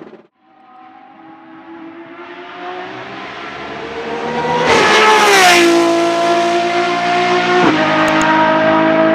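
A car engine accelerating, growing louder and climbing in pitch, then dropping sharply in pitch about five and a half seconds in and again, less, near eight seconds, as at gear changes.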